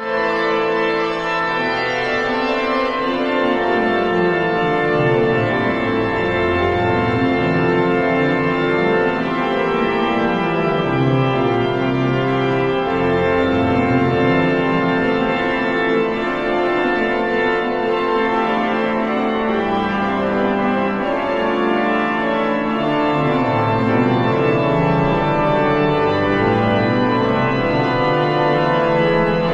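Pipe organ of Turku Cathedral playing sustained full chords over a moving bass line, the notes held and changing smoothly without a break.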